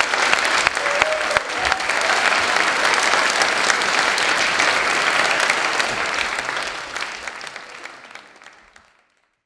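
Audience applauding, the clapping fading out to silence near the end.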